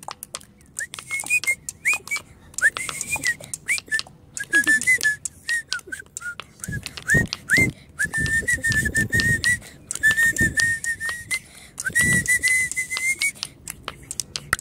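A person whistling a wandering, sliding tune, with long held notes in the second half, over a rhythm of a stone being tapped and scraped on a stone pavement.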